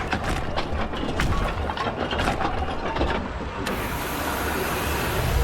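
A vehicle engine running under irregular mechanical clicks and clatter. About three and a half seconds in, the sound cuts abruptly to a steady hiss.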